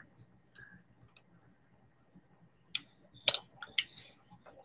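Metal pin-back buttons clicking and clinking against each other as they are handled. Quiet at first, then a few sharp clicks from nearly three seconds in.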